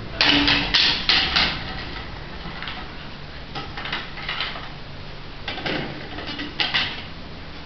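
Irregular sharp knocks and scuffs: a quick cluster of them in the first second and a half, then more around four seconds and six and a half seconds in.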